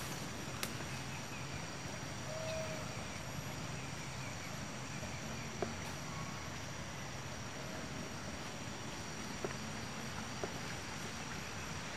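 Quiet rural outdoor ambience: a steady high-pitched insect drone with faint scattered chirps, and a few light clicks.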